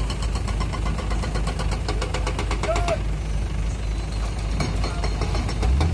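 Excavator diesel engine running with a fast, even clatter over a steady low rumble; the rumble gets louder just before the end.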